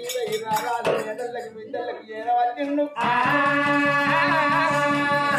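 Oggu Katha folk singing with instrumental accompaniment. A few sharp rattling strokes open it, the sound dips briefly, then a long held note comes in a little past halfway.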